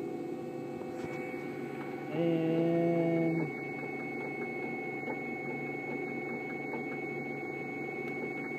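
Alternator bench tester spinning a rebuilt small-case Toyota Celica high-output alternator at idle speed under heavy electrical load, a steady hum with a thin high whine. A louder steady hum rises for about a second, about two seconds in.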